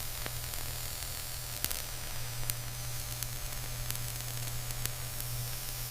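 Laser diamond-cutting machine running: a steady hiss over a low electrical hum, with a few faint crackles.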